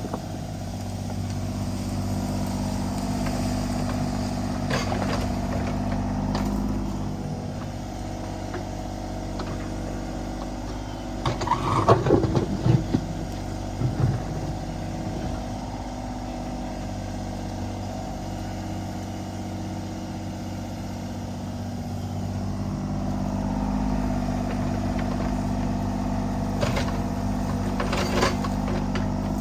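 Kubota U35-4 mini excavator's diesel engine running steadily, its note swelling a few seconds in and again near the end. A cluster of clunks and knocks comes about twelve seconds in.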